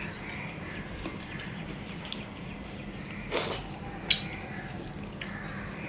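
Fingers mixing rice with thin masoor dal on a steel plate: soft wet squelching and light taps against the metal. A louder burst comes a little past three seconds in, and a sharp click at about four seconds.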